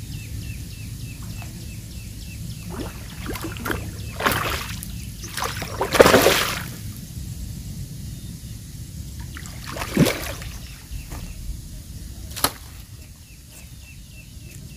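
Water splashing and sloshing in a few short bursts, the loudest about six seconds in and another around ten seconds: a hooked mrigal carp thrashing at the surface as it is brought in.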